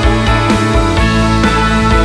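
Background music: a rock track with guitar and a steady drum beat.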